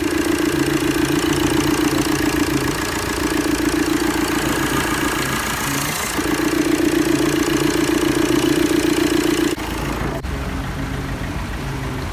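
Tata Vista Quadrajet's 1.3-litre four-cylinder common-rail diesel idling steadily, freshly filled with new engine oil. The sound changes abruptly and gets quieter about nine and a half seconds in.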